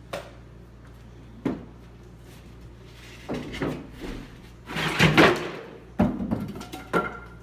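Wooden boards being knocked and handled during demolition of a shelf and wall: several sharp wooden knocks. The loudest is a clatter of under a second about five seconds in, as a loosened plywood board comes down.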